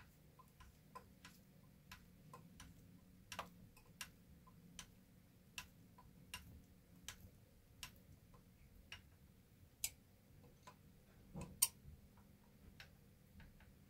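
Faint, small clicks as a hex driver turns and regrips on a screw going into the plastic rear bulkhead of an RC truck, roughly one click every second or less, with a couple of louder clicks near the end.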